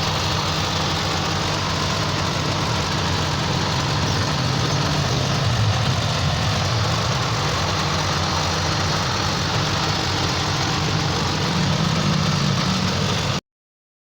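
Overhauled G4EK engine idling steadily. The sound cuts off abruptly just before the end.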